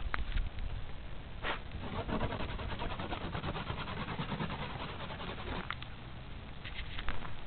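Sleet pellets crunching and crackling as a hand brushes them across an ice-coated car roof, with a few sharp clicks.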